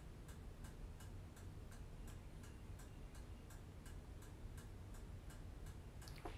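Steady faint ticking, about three ticks a second, over a low room hum.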